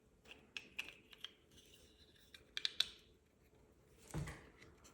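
Light clicks and taps of small 3D-printed plastic parts and hardware being handled during assembly, with a quick cluster of clicks partway through and a duller thump near the end.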